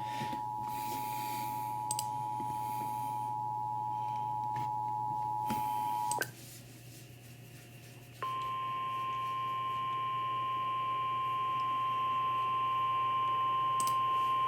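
Emergency Alert System two-tone attention signal, a steady dual tone that cuts off abruptly about six seconds in. After a short gap a single steady higher tone, the NOAA Weather Radio 1050 Hz warning alarm, starts about eight seconds in and holds, announcing a tornado warning, over a low hum.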